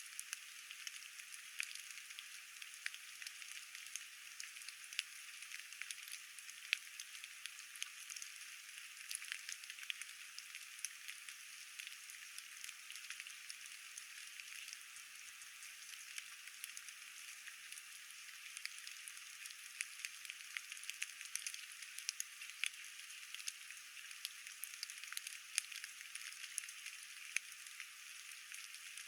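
Steady light rain falling, a soft hiss dotted with many small, sharp drop taps.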